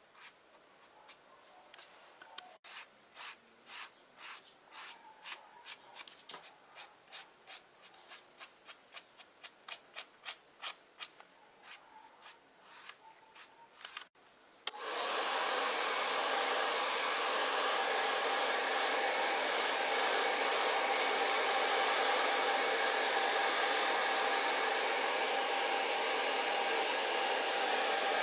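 A small sponge rubbing colour onto upholstery leather in quick back-and-forth strokes, about two a second, growing louder. About fifteen seconds in, a hand-held hot-air dryer switches on with a click and runs steadily, drying the freshly rubbed paint.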